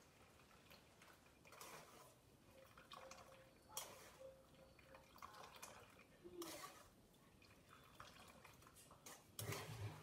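Faint dripping and trickling of blended watermelon rind juice running through a strainer, with a few soft knocks scattered through.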